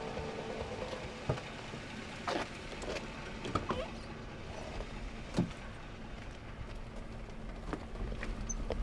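A car door being opened and a man climbing into the passenger seat: a few scattered knocks, clicks and rustles over a faint steady low hum from the idling car.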